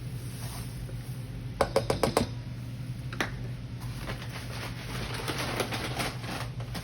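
Kitchen utensils tapping and clattering while white sugar is measured out: a quick run of about six sharp taps near two seconds in, one more a second later, then lighter ticking and rattling. A steady low hum runs underneath.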